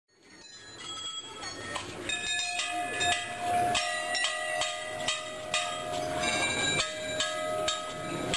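Hindu temple bells rung over and over, about two strikes a second, each strike ringing on at several pitches that overlap into a steady clangor. The sound fades in over the first couple of seconds.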